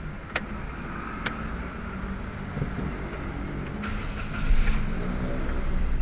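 Two sharp clicks, then the Toyota Wigo's engine starting a little after four seconds in and running on. This is the restart after repairing its cylinder 2 injector circuit misfire.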